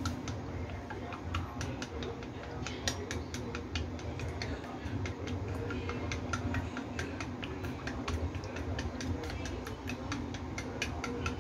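Chopsticks beating eggs in a porcelain bowl, clicking rapidly and unevenly against the bowl's sides, over a low steady hum.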